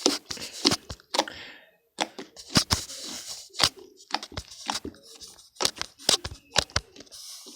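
Slime being squeezed and stretched by hand, giving a run of irregular pops and clicks.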